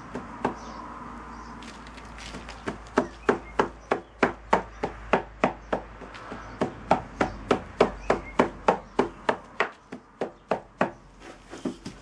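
Wooden rammer tamping moulding sand into a wooden moulding box: a quick run of sharp knocks, about three a second, starting a couple of seconds in and thinning out near the end.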